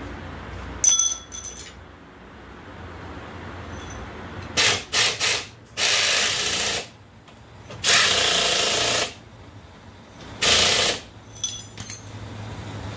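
Pneumatic impact wrench hammering a bolt on a golf cart's front suspension home, in bursts: three quick blips, then three longer runs of about a second each. Metal tools clink on the bolt before and after.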